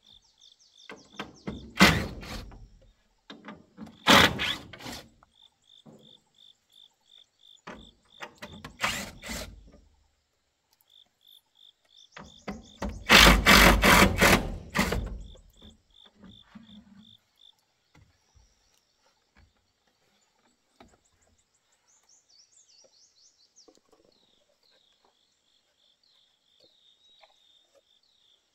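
Cordless drill driving screws into wooden boards in short bursts, the longest and loudest running for about two seconds midway. A pulsing insect call sounds through the first half, and birds chirp faintly near the end.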